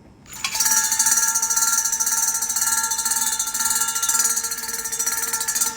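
Portable water flosser switched on about half a second in: its small pump runs with a steady whine under a loud hiss of the water jet.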